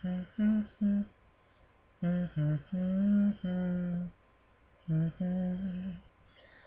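A man humming a slow wordless melody in three short phrases of held notes, the middle phrase the longest, with brief pauses between them.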